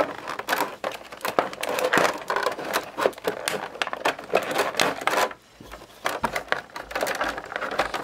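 Thin clear plastic toy packaging crinkling and crackling in irregular bursts as hands work an action figure and its parts free of it, with a brief lull a little past halfway.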